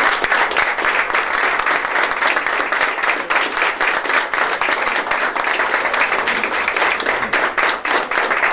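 Audience applauding, a dense, steady run of handclaps throughout.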